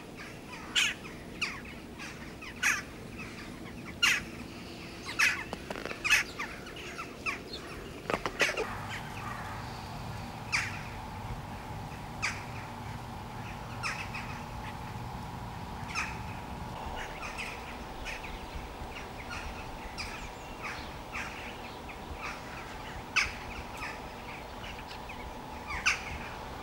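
Crows cawing, short harsh calls coming about once a second over a steady outdoor background, with a faint steady tone that sets in about eight seconds in.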